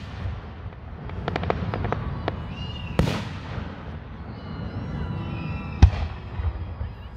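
Fireworks display: a quick run of crackles about a second in, an aerial shell bursting with a bang about three seconds in, and a louder bang near the end.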